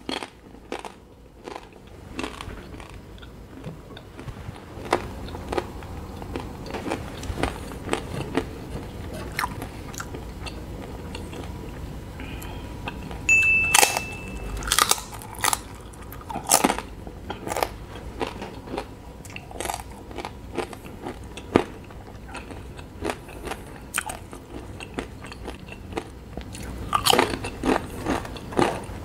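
Crunching and chewing of Paqui One Chip Challenge tortilla chips: a string of crisp bites and crackling chews, with the loudest crunches about halfway through and again near the end.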